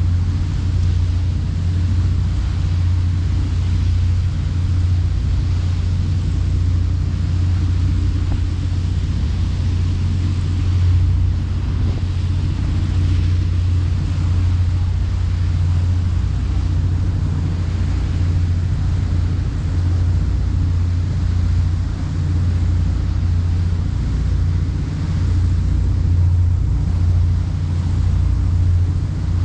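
Boat engine running with a steady, loud low drone, with wind and water hiss over it, heard on board.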